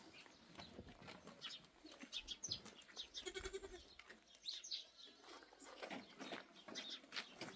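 Faint bleats from a flock of goats and sheep, heard now and then, with a few brief high chirps in between.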